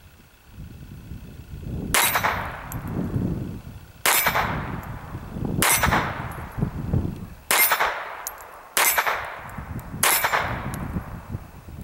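Six shots from an Astra Cub .22 Short pocket pistol, one every one and a half to two seconds, starting about two seconds in. Each shot is followed by the ring of steel plate targets being hit. The pistol fires and cycles through the whole string with no hang-up.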